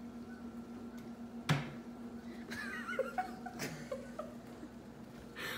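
A kitchen cabinet door knocks shut about a second and a half in, over a steady low hum. Faint voice sounds, like a soft chuckle, follow a second or so later.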